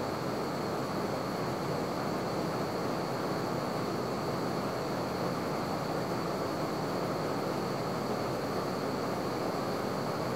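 Steady roar of SOTO SOD-300 gas stove burners running under pans of water.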